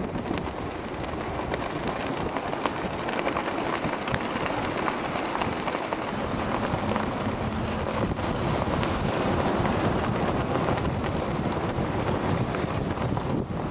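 Strong wind buffeting the microphone, a continuous rumbling rush with crackles through it and no steady tone.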